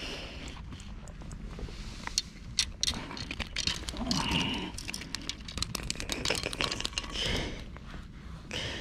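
Handling noises as a hairtail is landed on a concrete quay and gripped in a cloth: many sharp clicks and taps of the lure, line and rod, with rustling swells about four and seven seconds in.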